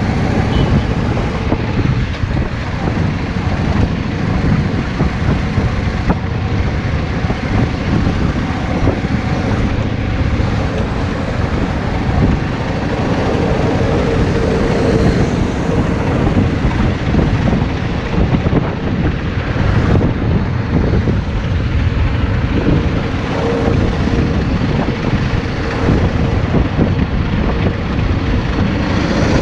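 Yamaha Drag Star 650's air-cooled V-twin engine running steadily.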